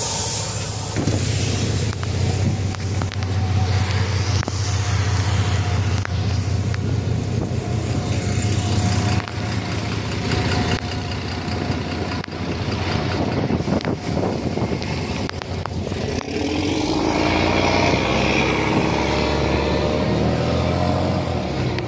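Cummins diesel engine of a VMZ-4252 city bus running steadily at idle, with a few sharp knocks midway, then revving up with a rising engine note in the last few seconds as the bus pulls away.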